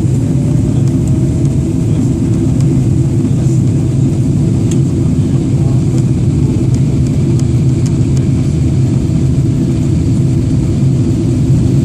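Steady low drone of cabin noise inside a Boeing 777-300ER in flight: the engines and the airflow over the fuselage, heard from a passenger seat.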